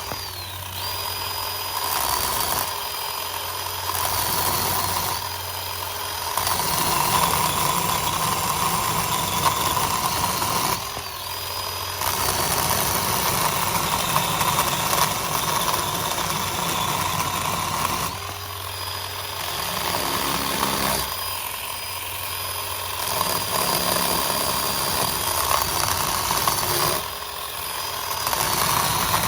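Ryobi One+ 18V 10-inch cordless chainsaw making repeated cuts through limbs. Its high electric-motor whine spins up, runs and winds down again several times, giving way over and over to louder chain-cutting noise as the chain bites into the wood.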